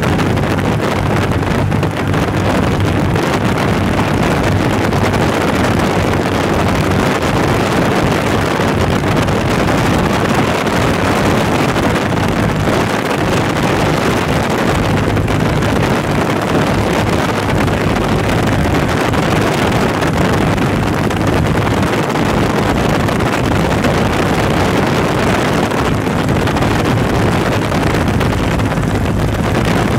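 Steady drone of a light airplane's engine heard from inside the cabin, mixed with loud wind rushing in through the open door and window.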